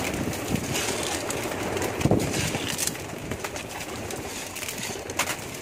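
Domestic pigeons cooing, with scattered soft clicks and rustles.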